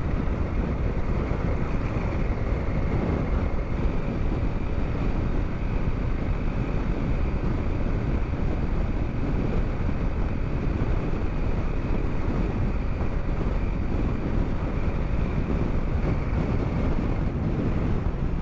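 Strong wind buffeting the microphone while riding a Honda CRF250L, with the bike's single-cylinder engine running steadily underneath. The wind noise is a constant rough rush that dominates throughout.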